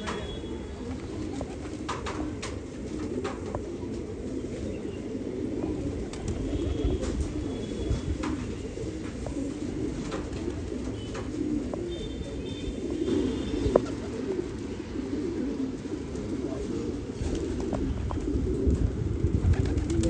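A flock of domestic pigeons cooing, many low coos overlapping into a continuous burble.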